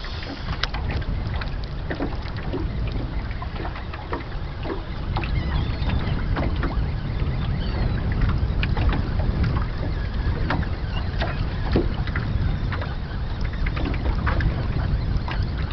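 Wind buffeting the microphone on a small aluminum boat, with choppy water lapping and slapping irregularly against the hull.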